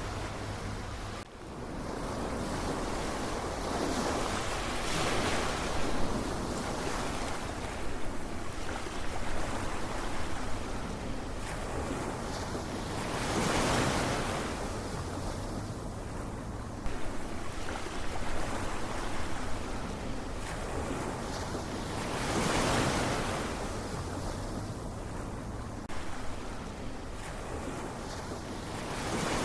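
Ocean waves washing in, each surge rising and falling, about every nine seconds. The sound briefly drops out about a second in.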